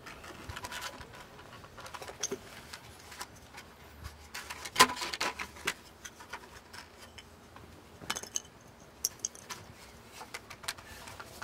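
Handling noise from a mag drive pond pump and its PVC plumbing being lifted and handled: scattered plastic clicks, taps and knocks. The loudest knock comes about five seconds in, and a run of small clicks follows near the end.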